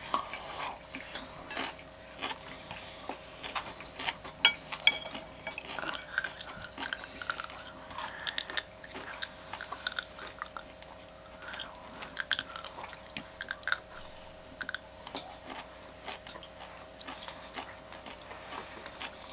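Close-up chewing and crunching of sea grapes with sushi: many small crackling pops scattered throughout, over a faint steady hum.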